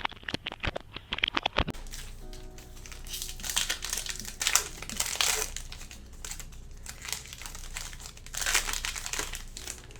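Plastic wrapping of a sports-card blaster box and its packs being torn open and crinkled, starting with a quick run of sharp clicks and crackles, then bursts of crinkling about four seconds in and again near the end.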